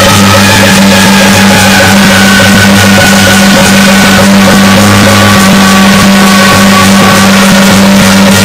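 Loud traditional Chinese instrumental music with a steady low drone under a held, shifting melody line.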